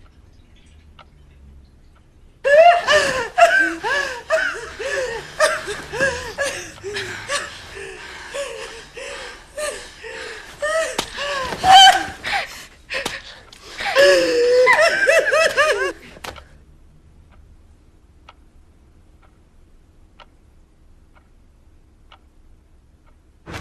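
Several young women laughing in quick repeated bursts of high-pitched 'ha-ha' syllables. The laughter starts a couple of seconds in and stops sharply about two-thirds of the way through.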